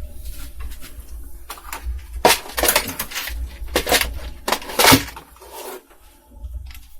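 Small metal parts clinking and rattling on a workbench in several short bursts, from about two to five seconds in.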